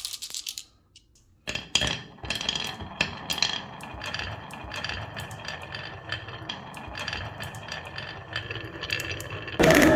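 Marbles rolling and clicking along a wooden marble run, with a steady stream of rattles and sharper clicks as they drop and strike the track. A much louder sound with falling tones cuts in near the end.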